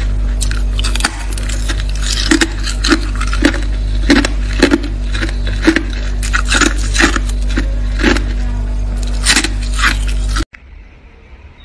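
Frost being scraped out of a freezer in quick repeated strokes, about two a second, crisp and gritty, over a steady low hum. The sound cuts off abruptly near the end.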